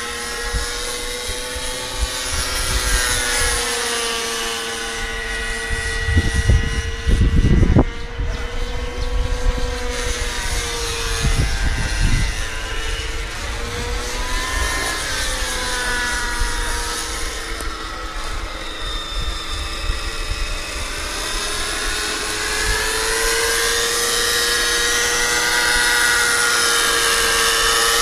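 Radio-controlled scale Bell 47G model helicopter in flight, its engine and rotor whine rising and falling in pitch as it manoeuvres, and growing louder near the end as it comes down low. Brief low buffeting on the microphone about six to eight seconds in.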